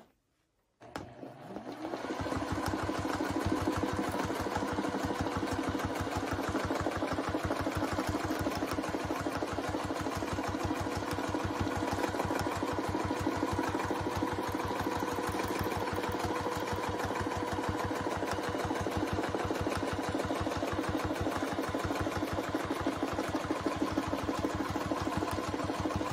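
Domestic sewing machine stitching in free-motion quilting: a rapid, even run of needle strokes. It starts about a second in, comes up to speed over the next second, and then holds a steady pace.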